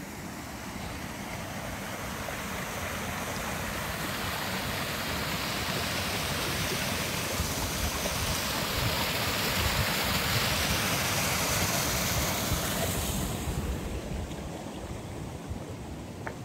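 Water rushing down a mill channel and spilling over a small cascade, a steady rush that grows louder towards the middle, then falls away fairly suddenly about three-quarters of the way through.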